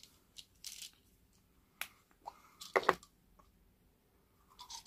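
Scattered small clicks and short rustles of objects being handled, with a louder double clack just before three seconds in.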